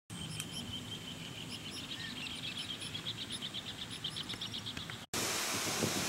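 Birds chirping and calling in rapid repeated short notes over a thin steady high buzz. About five seconds in the sound cuts abruptly to wind noise buffeting the microphone.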